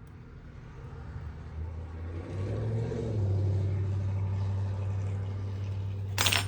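A low, steady rumble that builds up over the first three seconds and then holds, with a single sharp click near the end.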